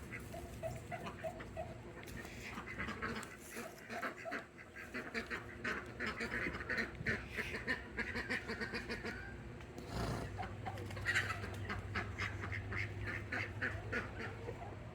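Farmyard waterfowl calling in quick runs of short quacking calls, in several stretches. A steady low hum joins about ten seconds in.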